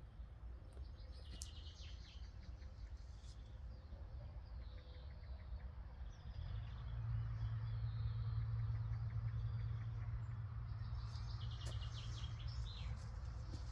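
Songbirds chirping in a forest in short high bursts, under a low steady rumble that grows louder about six seconds in.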